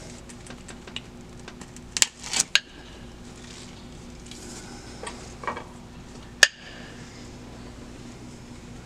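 Cable cutter shearing through a fiber rope at an electrical-tape wrap: a quick cluster of sharp clicks and crunches about two seconds in, then a few scattered metallic clicks of the tool, the loudest a single sharp click about six and a half seconds in.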